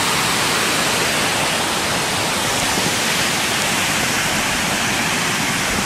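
Steady, loud rush of water from a waterfall's runoff stream pouring over rocks.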